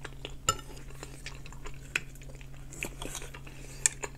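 Knife and fork clinking and scraping against a plate: several sharp clinks, the loudest about half a second in and just before the end, with soft chewing sounds between.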